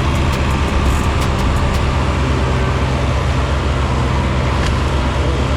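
Gas-powered BigBear Power 7-inch wood chipper running steadily at full speed, with a rapid run of sharp clicks for the first couple of seconds and a single one near the end.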